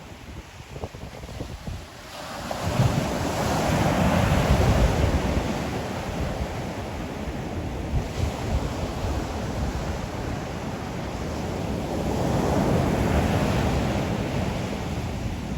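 Ocean surf: waves breaking and washing up the shore, with wind buffeting the microphone. A wave surges in about two seconds in and slowly ebbs, and another swell builds near the end.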